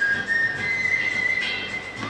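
A whistled melody of long held notes with small slides in pitch, over a backing music track with a light beat: the instrumental introduction to a Hindi film song.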